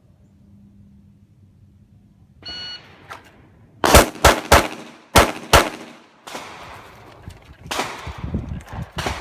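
A short electronic beep about two and a half seconds in, then five gunshots fired in quick succession over under two seconds, followed by rougher noise and a few more sharp bangs near the end.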